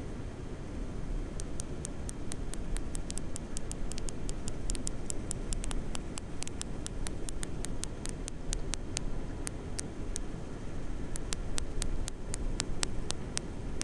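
False killer whale echolocation clicks recorded by hydrophone: sharp clicks several times a second in irregular trains, with a short pause about two-thirds of the way through before they resume, over a steady low underwater rumble.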